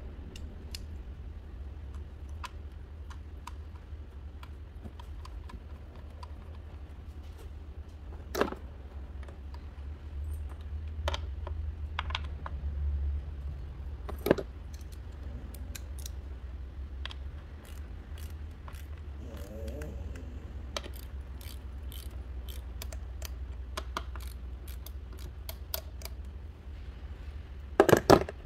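Scattered light metallic clicks and taps of hand tools and engine parts being handled, with a louder clatter of a ratchet and socket extension being picked up near the end, over a steady low hum.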